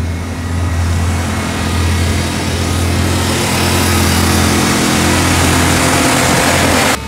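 Dodge Ram 2500's Magnum V8 gasoline engine running steadily at a raised idle, freshly jump-started off a dead battery. A rushing noise grows louder over the second half, and the sound cuts off suddenly near the end.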